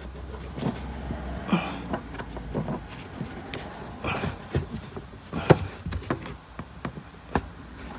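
Rustling and scattered knocks of a car's carpeted boot trim panel being pushed and tucked into place by hand, the loudest knock about five and a half seconds in. A low hum runs under the first two seconds.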